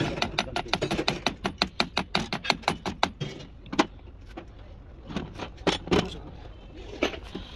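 Fast run of sharp metallic clicks from a hand tool working on a car part, about seven a second for some three seconds, then a handful of separate clicks.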